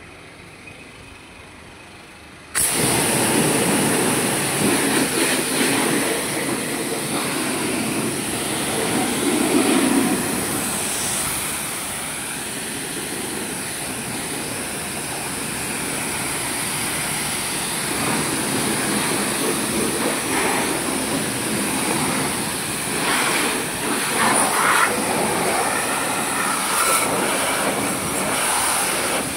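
High-pressure water jet from a motor-driven plunger pump's spray gun, coming on suddenly about two and a half seconds in and spraying steadily against a scooter's underside and the concrete floor. Before the spray starts, the running pump set is heard only faintly.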